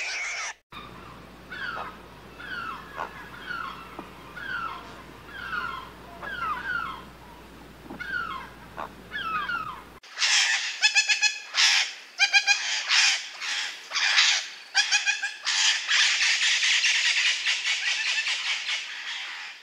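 Animal calls in two separate clips: first a series of short, falling chirps over a steady low hum, then, after an abrupt cut about halfway, louder rapid pulsed calls that run together into a dense, continuous chorus.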